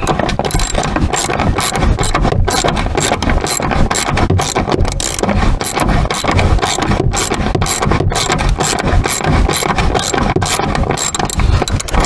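Socket ratchet clicking quickly and unevenly as a long 14 mm rear seatbelt anchor bolt is backed out.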